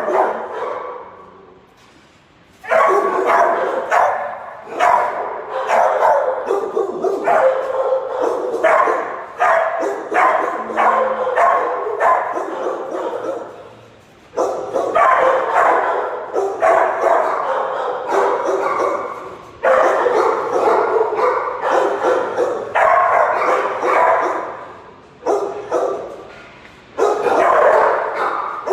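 Many shelter dogs barking in their kennels, a near-continuous chorus broken by a few brief lulls.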